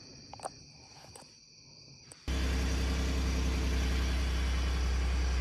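Ford F-150 pickup's engine running at a steady idle, heard from inside the cab; it cuts in suddenly about two seconds in, after a quiet stretch with a few faint clicks.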